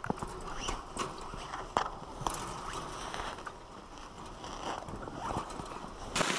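Rustling and scraping of clothing against rough ground, with scattered small crunches and clicks, as a person crawls under a wire fence.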